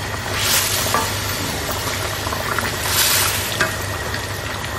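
Mutton curry sizzling in a wide pan on a high gas flame while a wooden spatula stirs it. The stirring swells louder about half a second in and again around three seconds.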